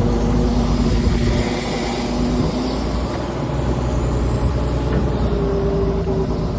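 Engine of a large earth-moving machine running steadily with a deep rumble, its engine note shifting a few times.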